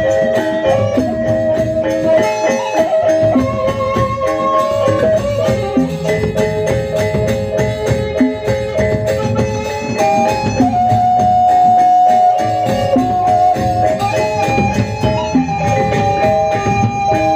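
Lombok gendang beleq ensemble playing: a bamboo suling flute carries a melody of long held notes over a dense beat of drums and metal percussion.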